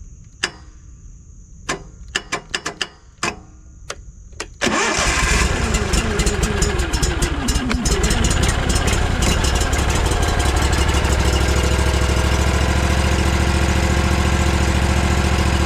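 Several sharp clicks, then an engine starts about four and a half seconds in, its pitch settling over the next few seconds into a steady, loud run.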